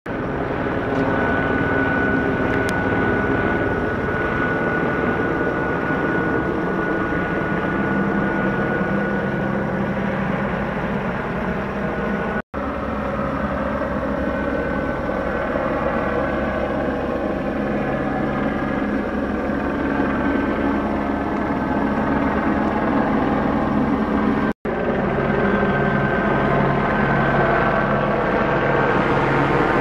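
Steady engine drone with a low pulsing throb and a faint high whine, broken twice by a brief dropout.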